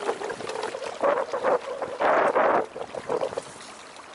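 Water rushing and splashing against the hull of a Beneteau First 20 sailboat under way, in uneven surges that ease off near the end.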